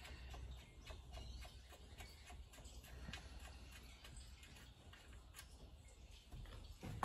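Faint, irregular light ticks and clicks, several a second, as a diesel engine's sump plug with a new washer is threaded back in by hand. A low steady hum runs underneath.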